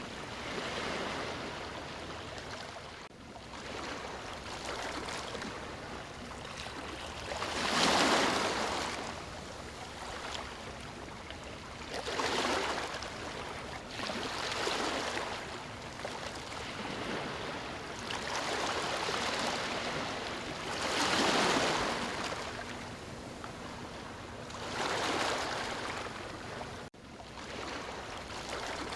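Ocean waves breaking and washing onto a beach, the surf swelling and easing every few seconds, with the two largest breakers about a third of the way in and again about two-thirds of the way in.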